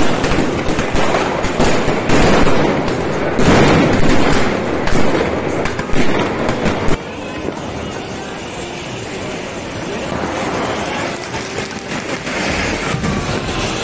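Ground fountain fireworks (anar, flower pots) spraying sparks with a loud crackling hiss. About seven seconds in the sound drops suddenly to a steadier, quieter hiss of another fountain.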